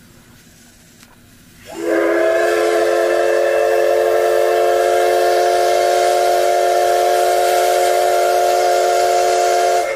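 C58 363 steam locomotive's whistle blowing one long, steady blast of about eight seconds. It starts about two seconds in with a brief upward slide in pitch, with steam hissing along with it.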